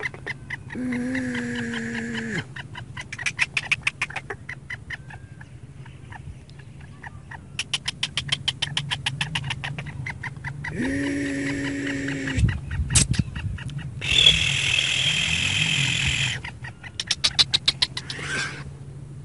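Male black francolin calling: several bouts of rapid, harsh, clicking notes. Two steady humming tones of about a second and a half sound near the start and around 11 s, and a loud harsh rasp comes about 14 s in.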